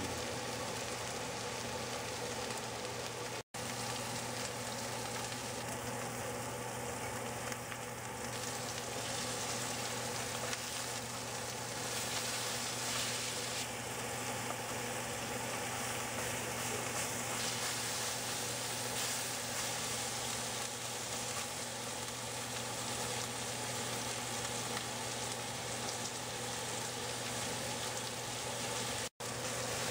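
Two rib eye steaks searing in a hot skillet, giving a steady sizzle. The sound drops out for an instant twice, about three seconds in and near the end.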